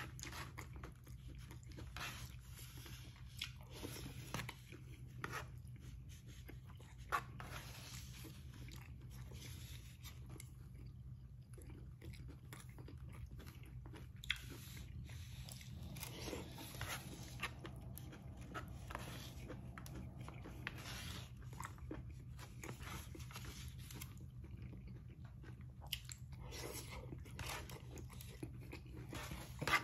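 A person chewing and eating up close: a mouthful of stir-fried brisket and rice, with the utensil scraping and tapping on a disposable plate and a few sharp clicks, over a steady low hum.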